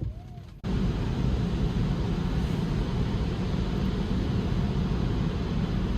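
Steady rain and wet-road tyre noise heard from inside the car's cabin during a storm. It starts suddenly and loud about half a second in, then runs as an even rush.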